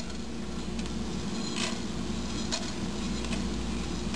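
Cumin and coriander seeds, with a cinnamon stick and cardamom pods, sizzling faintly in a little oil in a nonstick frying pan, with a few soft ticks from the seeds, over a steady low hum.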